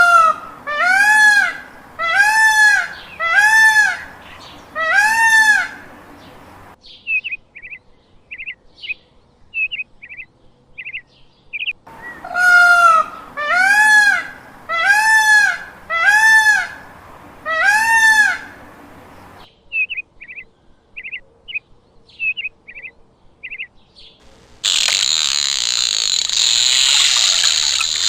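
Birds calling: a run of five or six long, arching calls about a second apart, then a string of short high chirps; the pattern repeats, and near the end a steady rushing noise like trickling water comes in.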